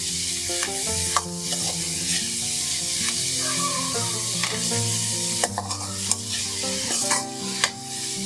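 Sliced onions, grated carrot, peas and green chillies sizzling in hot oil in a metal kadai while being stir-fried, the metal spoon scraping and tapping against the pan several times.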